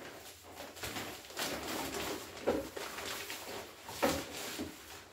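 Handling noises from material being worked into place over window blinds: several short rustles and knocks a second or so apart.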